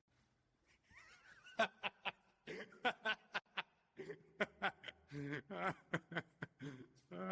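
A person snickering and chuckling in short bursts of quiet laughter, starting about a second in.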